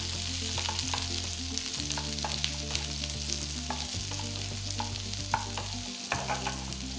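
Chopped onions and green chillies sizzling in hot ghee in a nonstick pan, stirred with a wooden spatula that gives frequent light scrapes and taps against the pan.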